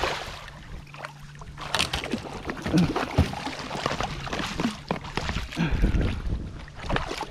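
Hooked barracuda thrashing and splashing at the surface beside an inflatable kayak, mixed with the fishing reel being cranked as the fish is fought in. There is a loud splash right at the start, then a run of uneven splashes and clicks.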